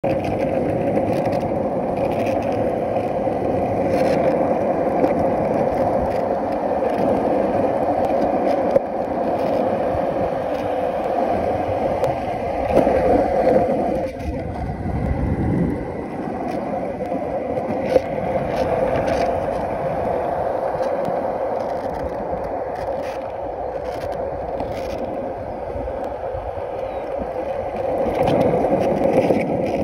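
Skateboard wheels rolling over pavement, a steady rolling noise with a few sharp clicks along the way.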